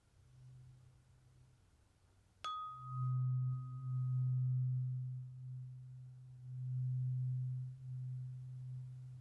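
A tuning fork struck about two and a half seconds in: a short bright ring over a low, steady hum that swells and fades in slow waves.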